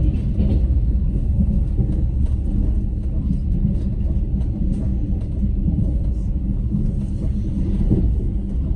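Moving train running with a steady low rumble, with the clatter of its wheels on the rails.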